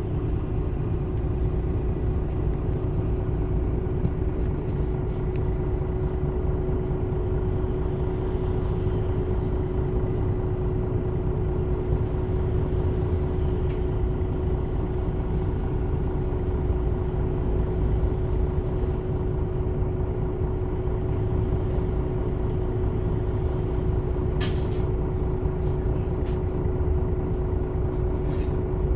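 MAN Lion's City A21 city bus's Euro 6 diesel engine running at a constant speed: a steady low hum with an unchanging whine over it. Two sharp clicks near the end.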